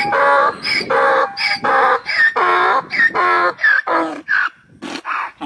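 A child's voice imitating an animal with a string of short, pitched, chicken-like clucking calls, two or three a second, stopping near the end.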